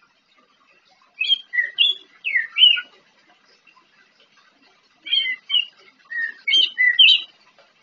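A young orange-headed thrush (anis merah) that is still learning its song sings two short phrases of quick whistled notes. The first phrase comes about a second in and the second about five seconds in.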